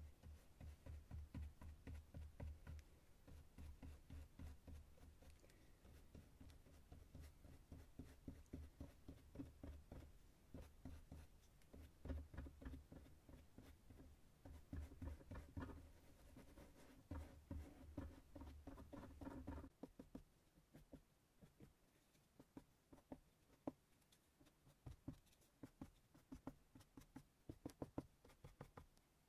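Faint, rapid scratching and tapping strokes of handwork on cardboard, close and dense with soft low thuds for about twenty seconds, then thinning to scattered light clicks.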